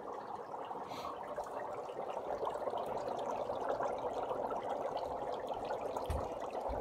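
Dry ice bubbling vigorously in water in a stainless-steel sink, a steady, dense fizzing and gurgling that grows a little louder about two seconds in.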